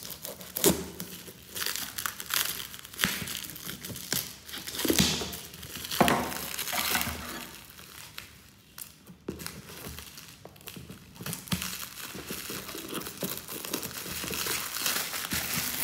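Plastic wrap and packing tape on a cardboard box crinkling and tearing as they are slit with a blade and pulled off, with irregular rustles and sharp clicks.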